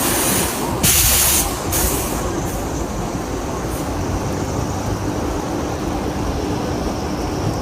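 Floodwater of a swollen river rushing in a steady, heavy roar, with a few louder hissing surges in the first two seconds.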